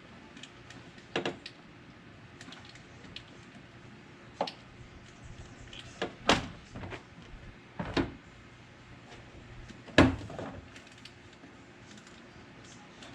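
Sporadic clicks and knocks of hand tools and plastic parts being worked on a pickup truck's door handle assembly, with the loudest knock near the end.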